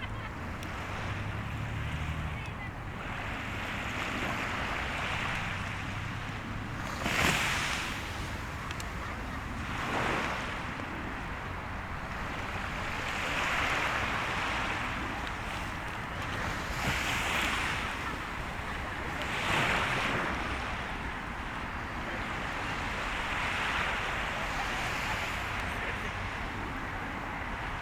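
Sea waves washing onto the shore in slow, repeated swells, with several louder breaks standing out.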